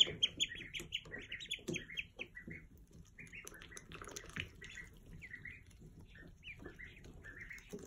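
Ducklings peeping: a quick run of high chirps for the first two seconds or so, thinning to scattered peeps after that.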